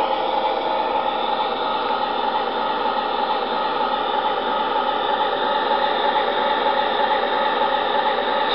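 MTH Amtrak Genesis model diesel locomotive's onboard sound system playing its diesel idle sound. The locomotive is standing at 0 mph, and the sound is a steady, even noise through the model's small speaker.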